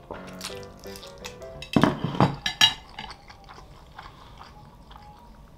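Jajangmyeon noodles slurped into the mouth in one loud burst about two seconds in, followed by wet mouth clicks and chewing, over soft background music.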